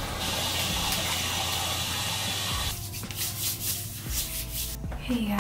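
Deodorant stick rubbed against underarm skin: a steady scraping rub for about two and a half seconds, then a run of short separate strokes.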